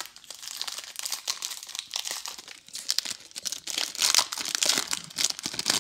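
The foil wrapper of a Bowman Draft baseball card pack being torn open and crinkled by hand: a dense run of crackling, loudest about four seconds in.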